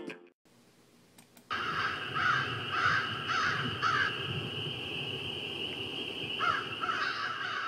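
The closing music cuts off, and after about a second of near silence crows start cawing over a steady background hiss: a run of four caws about half a second apart, then another run near the end.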